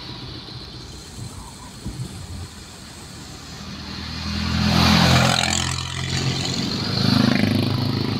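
A road vehicle's engine passing close by on a wet road, heard from inside a car. It builds to its loudest about five seconds in, with a hiss of tyres on water, and a second engine swell comes near the end.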